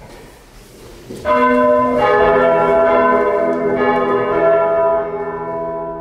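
Church bells swung by hand-pulled ropes begin ringing about a second in. Repeated strikes build into a loud, sustained, overlapping peal that eases slightly near the end.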